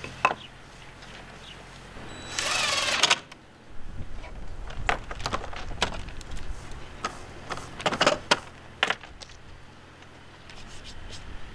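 A brief, loud whir of a small motor-driven tool lasts about a second, starting about two seconds in. Scattered sharp clicks and knocks follow as wooden door frames and hand tools are handled on a plywood work table.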